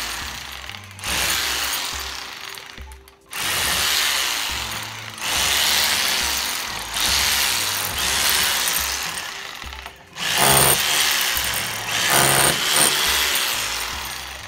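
Rotary hammer drill with a masonry bit boring into a concrete wall, chipping out a recess for an electrical box. It runs in a string of loud bursts, each starting sharply and trailing off, about seven in all.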